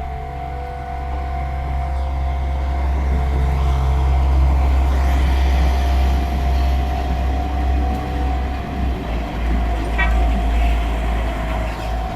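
Level crossing alarm ringing steadily while a train runs through with a heavy low rumble that swells a few seconds in.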